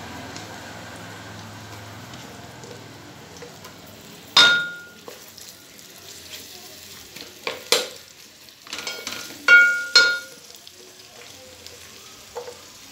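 Sliced onions sizzling quietly in hot oil in a steel pot as a wooden spatula stirs them. A few sharp knocks of the spatula on the pot make the steel ring: one about four seconds in, then several between about eight and ten seconds.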